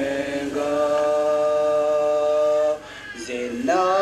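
People singing without instruments: a long held note, a brief break near the three-second mark, then a new note sliding up into place.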